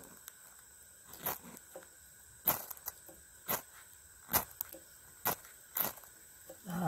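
Steel striker scraped hard down a ferro rod over birch bark, about six quick rasping strikes at uneven intervals, throwing sparks to light the bark. A short voice-like sound comes right at the end.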